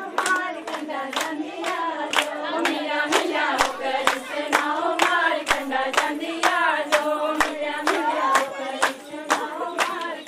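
Group of women singing a Pahari folk song for a gidda dance, with hand claps keeping a steady beat of about two claps a second.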